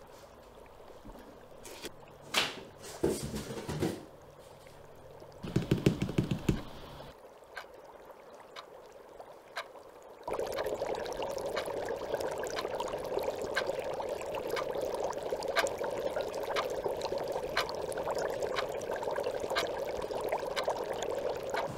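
A few handling knocks and a short fast rattle, then from about ten seconds in water from a kitchen tap starting suddenly and running steadily into the sink.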